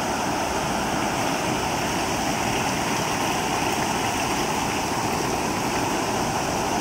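Steady rush of stream water spilling over a small weir, with water splashing as a cement pipe is lifted out of the stream and drains.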